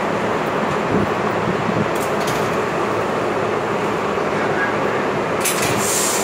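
R32 subway train standing in the station with its doors open, a steady rumble from the train and station. A few sharp metallic clicks come about two seconds in, and a short hiss near the end.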